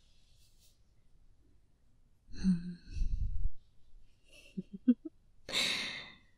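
A woman's close, breathy vocal sounds without words: a low voiced breath about two seconds in, a few small mouth clicks and short voiced sounds, then a long exhaled sigh near the end.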